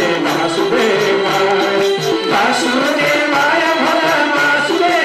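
Devotional bhajan music: singing over instruments with a steady, even percussion beat.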